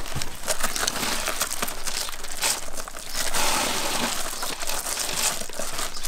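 Sunflower seeds being rubbed by hand out of dried sunflower heads: a continuous dry crackling rustle of seeds and husk, full of small clicks.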